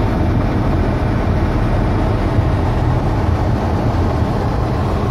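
Steady low rumble of a car's engine and tyres on a snowy, slushy road, heard from inside the cabin while driving.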